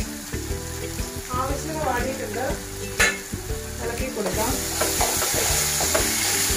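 Sliced onions sizzling as they fry in an aluminium pot, with a spoon stirring them; a sharp knock about three seconds in. The sizzle grows louder after about four seconds.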